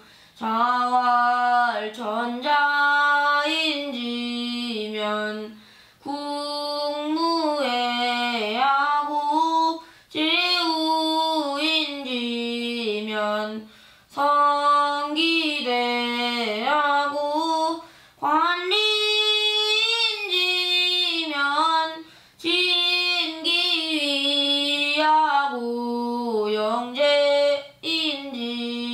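A single high child's voice chanting a Classical Chinese text in the traditional sung reading style (seongdok). It moves in drawn-out melodic phrases of about four seconds each, with a brief breath between them.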